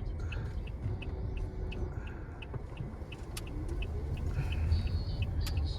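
Inside a moving taxi: steady low road and engine rumble of the car driving, with a faint, evenly repeated ticking.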